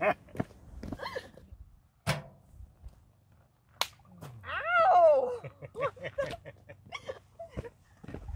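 Two sharp hand slaps about two seconds apart, the second a high-five. Right after it comes a loud whooping cry that falls steeply in pitch, followed by a few shorter excited vocal sounds.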